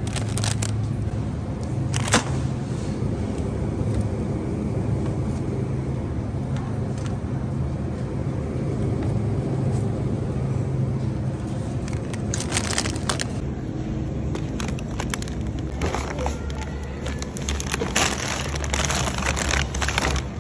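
Shopping cart rolling along a store floor, a steady low rumble, with scattered knocks and crinkles of grocery packaging being handled.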